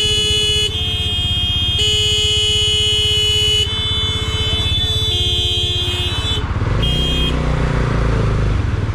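A loud vehicle horn sounding a run of long, steady notes that change pitch every second or so for about six seconds, over a running motorcycle engine. The horn stops and the motorcycle engine revs up near the end.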